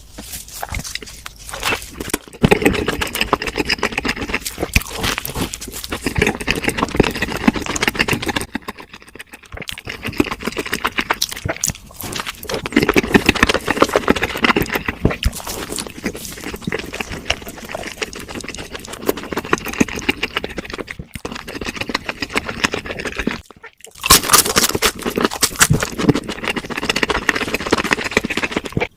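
Close-miked eating: loud chewing and crunching with wet mouth noises, broken by a couple of brief pauses.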